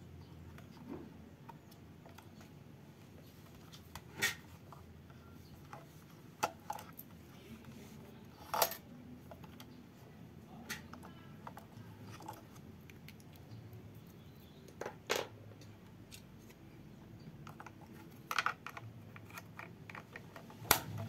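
Hard plastic being handled: a toy train's battery compartment, with a few short sharp clicks and taps spread through, the last as the battery cover is slid back into place near the end.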